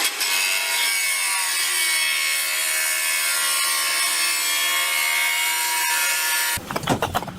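A power tool cutting, most like a saw in wood: a loud, steady cutting noise with a whine that drifts slowly in pitch. It cuts off suddenly about six and a half seconds in and gives way to a series of sharp knocks.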